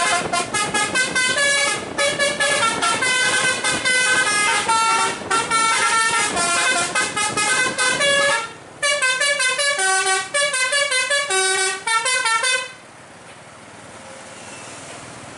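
Telolet basuri musical horn on a tour bus playing a fast melody of bright, stepping notes, with a short break about eight seconds in. The horn stops about thirteen seconds in, leaving much quieter steady background noise.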